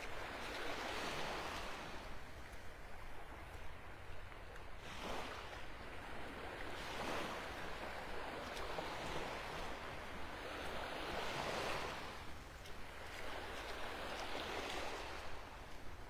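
Small, gentle waves washing onto the beach, the surf swelling and easing every few seconds.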